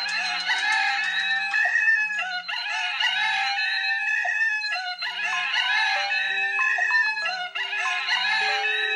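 Smartphone ringtone playing: a short melodic phrase over a steady low beat, looping about every two and a half seconds.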